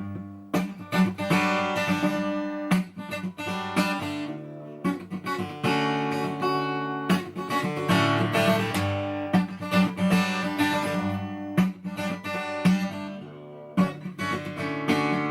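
Acoustic guitar played as a song's instrumental introduction, a mix of strummed chords and picked notes, starting abruptly.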